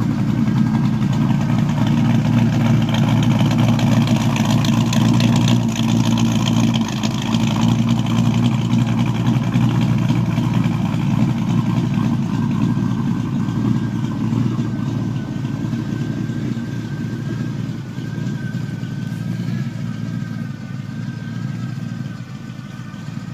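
1957 Chevrolet Bel Air's 355 small-block V8 with a thumper cam idling steadily through dual exhaust, with the choppy idle of that cam; a little quieter in the second half.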